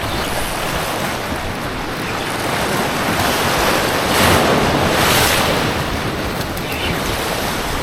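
Waves washing on the shore with wind buffeting the microphone, a steady rushing noise that swells about halfway through.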